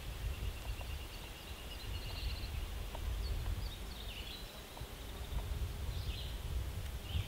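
Outdoor ambience: a steady low rumble with a few faint bird chirps and a short high trill about two seconds in.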